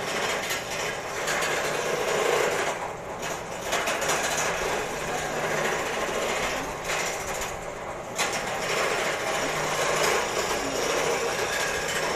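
Homemade wood lathe running under power with a tool cutting into the spinning wood, a steady rasping machine noise that eases off briefly a few times as the cut lightens.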